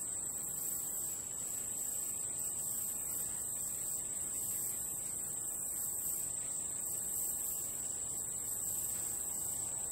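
Steady high-pitched chorus of insects, typical of crickets, running unbroken with no change.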